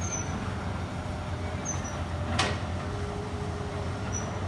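Heavy diesel engines of trucks and an excavator idling steadily, with one sharp knock about halfway through.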